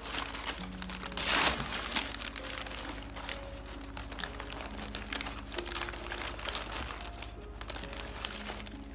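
Crumpled brown packing paper crinkling and crackling as two kittens wrestle and roll in it, in quick irregular rustles with one louder burst about a second and a half in.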